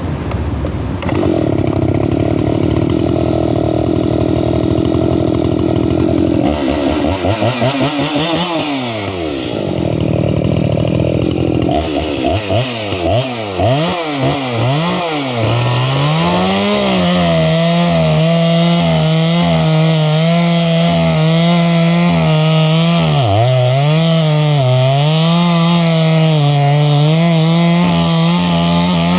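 Chainsaw bucking a log. The engine runs steadily, revs up and down, drops toward idle about twelve seconds in, then from about sixteen seconds holds a high steady pitch through the cut, dipping briefly now and then as the chain bites into the wood.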